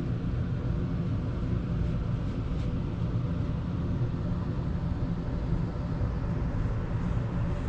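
Steady low mechanical rumble with a faint hum, unchanging in level.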